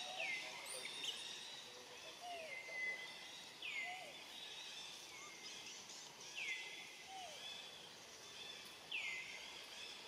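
Baby monkey crying over and over: about five high cries, each sliding down in pitch and then holding for a moment, one to three seconds apart, with fainter short lower calls in between.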